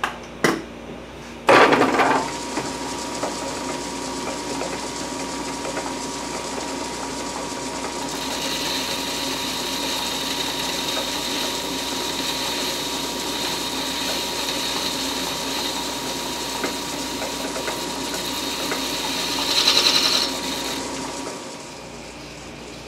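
Metal lathe started with a clunk, its motor and spindle running steadily while a boring bar takes a thread-chasing pass inside the bore of a four-jaw chuck. A high steady whine from the cut joins in after several seconds and swells near the end. Then the lathe is switched off.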